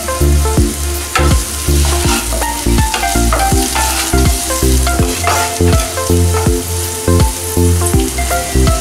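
Chopped onion, green chilli and tomato sizzling in hot oil in a pan while a wooden spatula stirs and scrapes through them, over background music.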